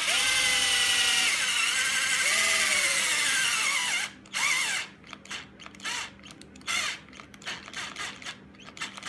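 Cordless drill spinning a glue-loaded half-inch wooden dowel into a pocket hole in a chair. The motor whines steadily for about four seconds, its pitch dipping twice as the dowel goes in, then stops, and a string of shorter bursts follows.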